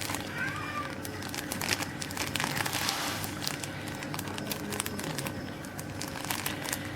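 Packaging crinkling and rustling as it is handled and unwrapped, with irregular crackles and a louder stretch of rustling about two to three seconds in.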